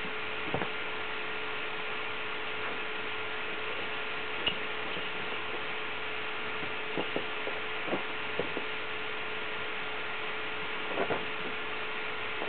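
Steady electrical hum and hiss, with a few soft thumps and rustles scattered through as two cats scuffle on a sheet-covered sofa.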